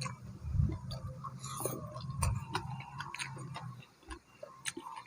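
A person chewing food close to the microphone: irregular crisp clicks and crunches, with a low rumble that dies away about four seconds in.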